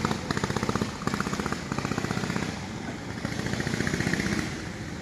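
Small boat engine running steadily with a fast, even pulsing beat, pushing upstream against the current.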